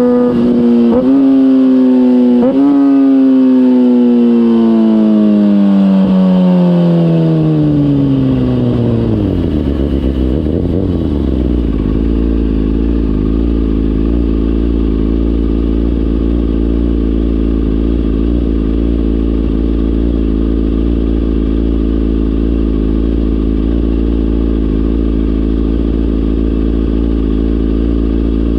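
2004 Kawasaki ZX-6R inline-four through a MIVV GP exhaust: the revs jump up twice in quick succession, as on downshifts, then fall steadily as the bike slows. About eleven seconds in the engine settles to a steady idle.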